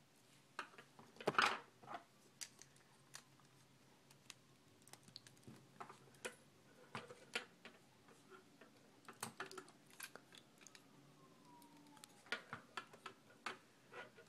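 Scattered, irregular plastic clicks and taps as a small hard-plastic transforming toy figure is handled and its parts are adjusted on a tabletop.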